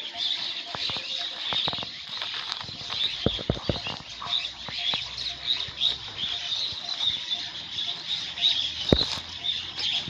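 Birds chirping steadily, with footsteps and rustling in dry weeds and leaf litter and scattered knocks, the sharpest about nine seconds in.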